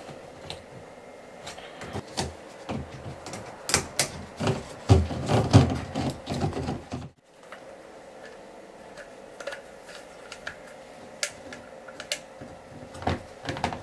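Irregular clicks and knocks of plastic parts as a bathtub's plastic waste trap is handled, fitted and screwed together by hand. There is a busier cluster of knocks in the middle.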